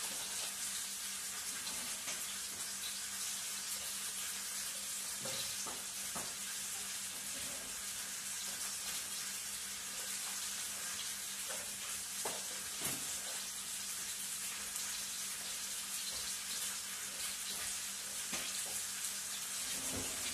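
Chopped onions, carrots and celery sizzling in a pot on the stove as they are stirred: a steady hiss, with a few knocks and scrapes of the stirring utensil against the pot.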